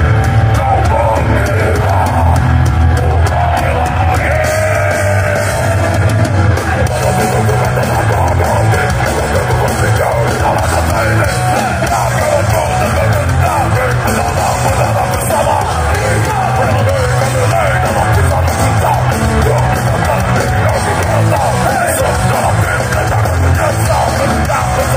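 A heavy metal band playing live through a concert PA: distorted electric guitars, bass and drums with a shouted vocal over them, loud and steady.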